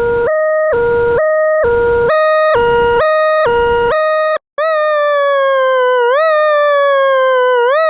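Electronic siren sound effect. For about four seconds it switches back and forth between two pitches, with a hiss over some of the steps. After a brief break it becomes a slow falling wail that jumps quickly back up in pitch about every second and a half.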